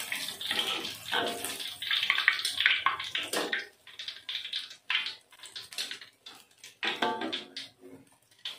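Chicken nuggets sizzling in hot oil in a wok, loud for the first three seconds or so, then dying down to scattered short crackles as the nuggets are lifted out of the oil in a wire strainer.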